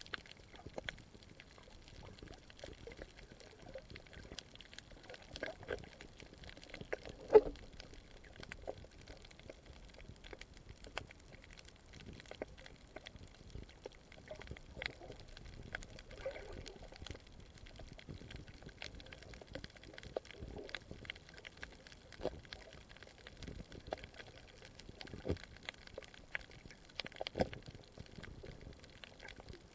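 Underwater reef ambience picked up by a submerged camera: a faint wash of water with irregular small clicks and crackles, and one louder pop about seven seconds in.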